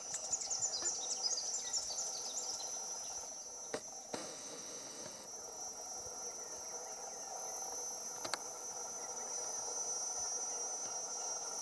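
Steady, high-pitched trilling of insects in the forest, like a cricket or cicada chorus. A run of quick chirps sounds over it in the first couple of seconds, and a few sharp clicks come around four seconds in and again near eight seconds.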